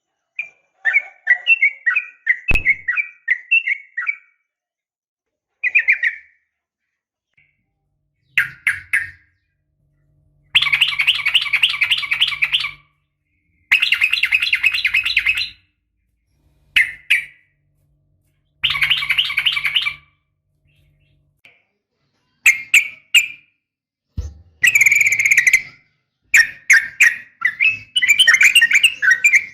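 Yellow-vented bulbul (trucukan) calls: bursts of rapid chattering notes, some running two seconds or more, separated by short pauses. It is presented as a female calling to draw a male.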